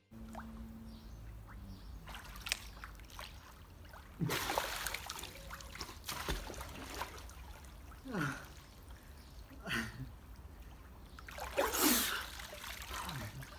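Water splashing and dripping in a small inflatable pool as men come up after holding their breath underwater, with a loud splash about four seconds in and another near the end, and a few short gasps for breath.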